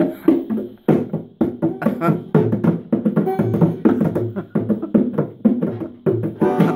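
A pair of bongos played with bare hands in a quick, uneven rhythm of strokes. A banjo comes in strongly right at the end.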